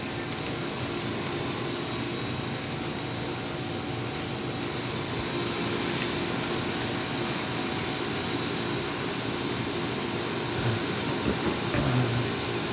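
Steady background hum and hiss of a store's air handling, with a low held tone throughout. A few short low knocks come near the end.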